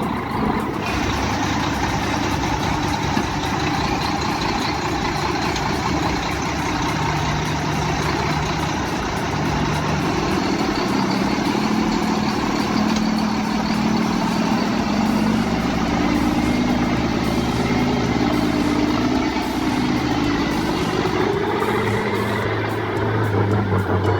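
Heavy diesel engines of a logging truck and excavator running, the engine note rising and falling as they work, with a deeper note coming in near the end.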